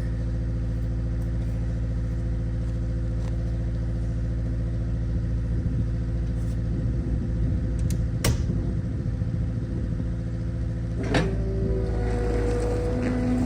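Engine idling steadily, with scattered knocks and clatter partway through, a sharp clank about eight seconds in and another about eleven seconds in; near the end a higher steady whine joins the engine.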